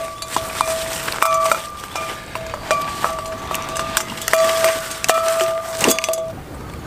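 Dry fallen leaves crunching and crackling underfoot, with scattered sharp clicks and light clinks, over a steady held tone that cuts off near the end.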